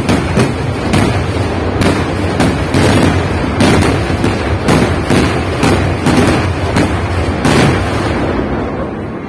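Kerala temple vedikkettu fireworks going off in a dense, rapid barrage of bangs and crackles. The barrage eases off slightly in the last second.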